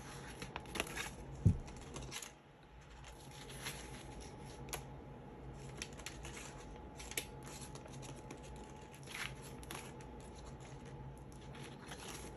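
Paper banknotes handled and sorted by hand: soft, scattered rustles and flicks of the bills, with a light knock on the table about one and a half seconds in.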